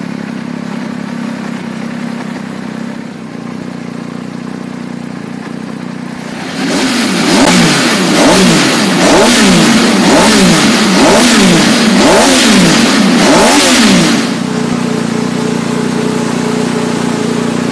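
Benelli Tornado 900 Tre's 900 cc inline three-cylinder engine idling steadily, then revved in a string of quick throttle blips, each rising and falling in pitch, for about seven seconds before dropping back to idle.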